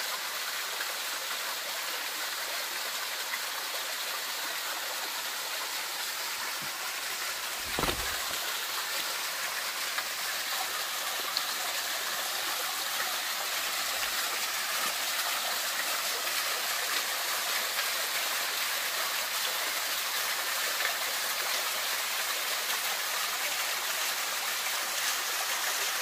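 A small waterfall splashing steadily into a shallow rock pool, an even rush of falling water. A single low thump about eight seconds in.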